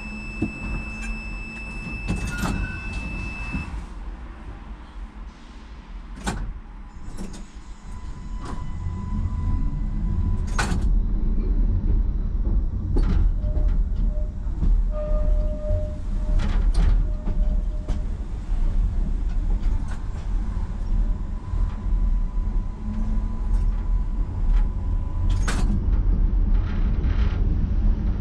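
Budapest tram on line 12 setting off. A steady high electronic tone sounds for the first few seconds, followed by a few sharp knocks. The tram's low running rumble then builds from about eight seconds in and holds steady, with occasional sharp knocks over it.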